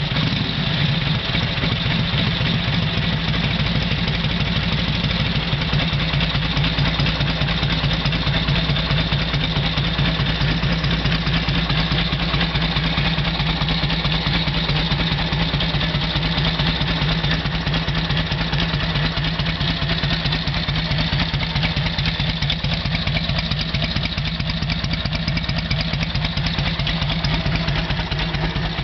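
1942 Harley-Davidson WLA's 45-cubic-inch flathead V-twin, freshly kick-started, idling steadily with an even, pulsing beat.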